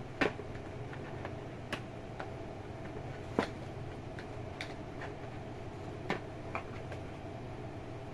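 A cat moving about inside a cardboard box: a scattering of short sharp taps and scratches on the cardboard, loudest just after the start and about three and a half seconds in, over a steady low background hum.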